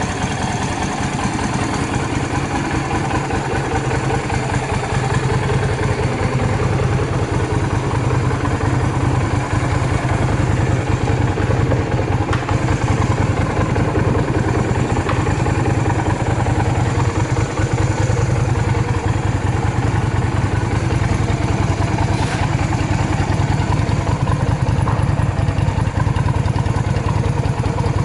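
Yamaha Drag Star 250's air-cooled V-twin running steadily at idle, fuel fed from a jump tank, with no abnormal noise by the seller's account. It gets slightly louder about five seconds in.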